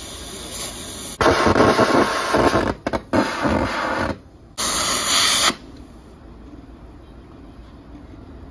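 Hissing of escaping gas or air in several bursts. The longest and loudest burst runs about three seconds from one second in, a shorter one comes near five seconds, and then the hissing stops.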